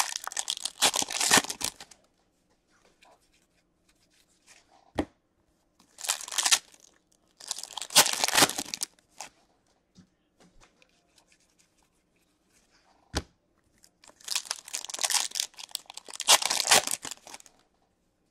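Foil wrapper of an Upper Deck Series 1 hockey card pack torn open and crinkled, then the cards handled and slid against one another. The sound comes in several short bursts of tearing and rustling, with two sharp taps in between.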